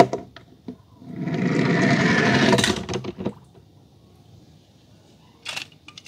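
Die-cast toy car set down with a click, then a loud rushing noise lasting about two seconds as it runs down into a tub of water, ending in a few sharp clicks.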